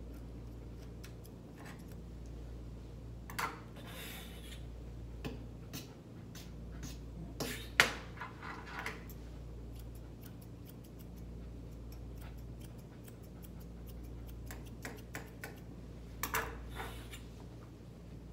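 Grooming shears snipping through a West Highland White Terrier's leg coat in irregular, scattered clicks, with a few brief rustling bursts, the loudest snip a little before the middle.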